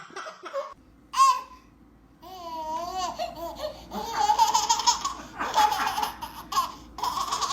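A baby squealing and then laughing in quick repeated bursts.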